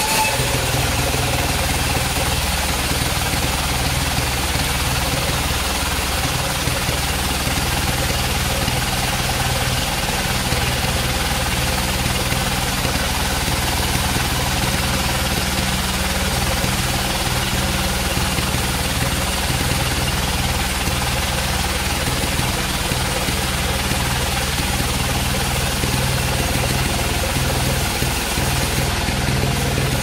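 Band sawmill running steadily while its blade cuts lengthwise through a large albasia log: a continuous mechanical drone with a constant cutting hiss.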